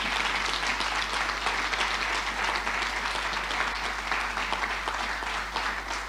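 Congregation applauding steadily, the clapping easing off a little toward the end.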